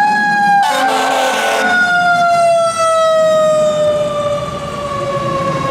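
Fire truck's mechanical siren winding down, its pitch falling slowly and steadily. A short burst of noise cuts in about a second in.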